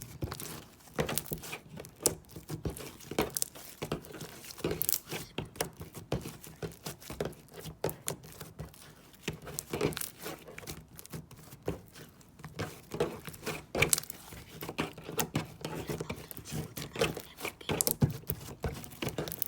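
Slime being squeezed, stretched and pressed by hand: a continuous run of irregular sticky clicks and small pops.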